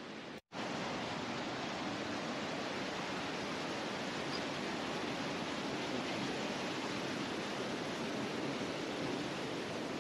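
Mountain stream rushing over rocks: a steady, even rush of white water, broken by a brief total dropout about half a second in.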